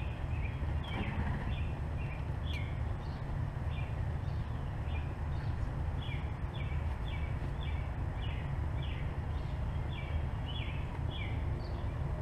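A small bird chirping over and over, short falling notes about two a second, over a steady low background rumble.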